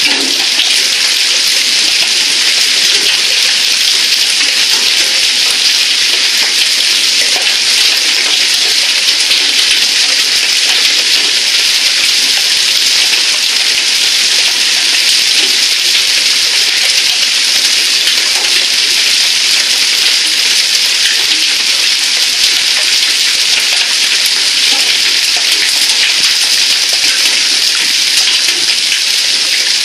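Heavy storm downpour of rain and hail, a steady, dense hiss.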